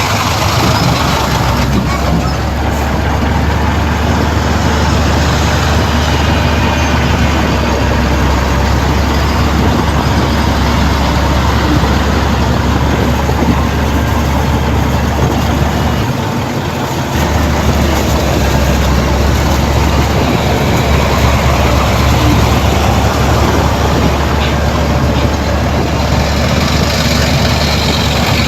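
Heavy diesel engine of earthmoving machinery running steadily with a deep low rumble, which dips briefly a little past halfway.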